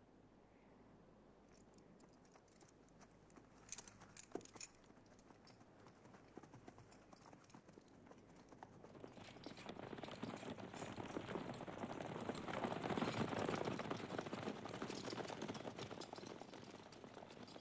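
Faint clatter of massed soldiers and cavalry horses shifting on the battlefield, a dense rattle of hooves and equipment. A few sharp clicks come about four seconds in, and the clatter swells around ten seconds in before fading again.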